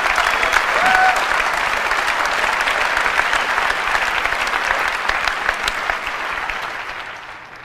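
Large audience applauding, dense clapping that dies away over the last second or so.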